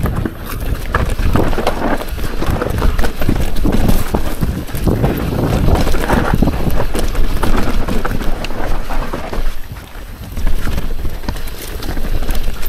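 Mountain bike descending a rough, rooty dirt trail: tyres rumbling over the ground and the bike clattering over a constant run of bumps and knocks, with wind noise on the camera microphone. There is a brief quieter moment just before ten seconds in, then a hard knock.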